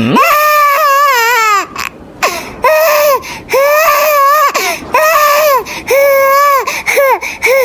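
A high-pitched voice wailing as if crying, in a string of drawn-out sobbing wails. The first is long with a wavering pitch, and the shorter ones after it each drop off at the end.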